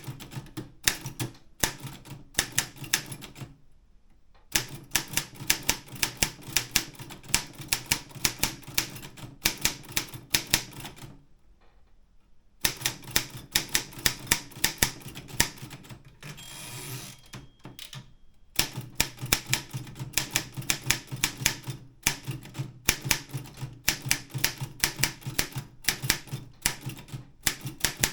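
Optima M12 wide-carriage typewriter being typed on in quick runs of sharp key strikes, with two short pauses. About two-thirds of the way through, the strikes give way for a couple of seconds to a smoother sliding noise.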